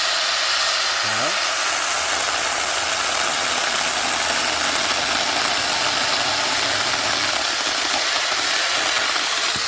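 Mini cordless chainsaw running steadily at full speed as its chain cuts through a branch.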